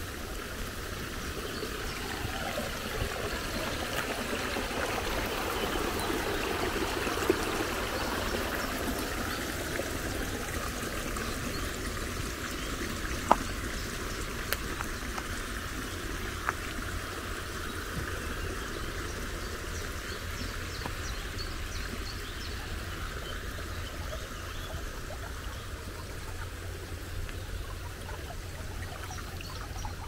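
Small woodland brook running over stones: a steady trickling, babbling rush of shallow water, with a few brief clicks.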